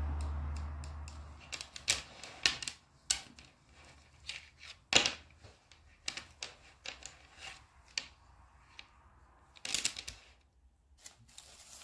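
Wooden tiles of a strung wooden-bead trivet clicking and clacking against each other and tapping on a tabletop as it is handled, an irregular run of sharp clicks. A low rumble dies away in the first second.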